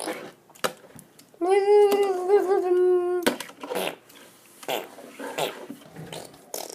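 A child's voice holding one hummed note for about two seconds, slightly wavering, with scattered light clicks and taps around it.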